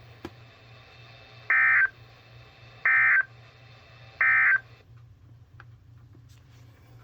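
Emergency Alert System end-of-message signal: three identical short bursts of squawking modem-like data tones, about a third of a second each and roughly 1.3 seconds apart, marking the end of the warning broadcast. A steady low hum runs underneath.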